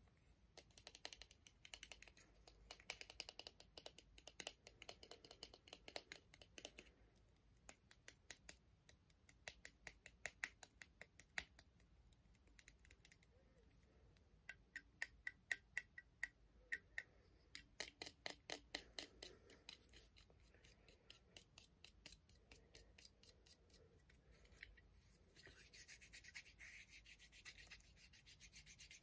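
Fingertips and nails tapping rapidly on a small white box, in several runs of quick light clicks with short pauses between. Near the end the taps give way to a steady brushing rub of hands rubbing together.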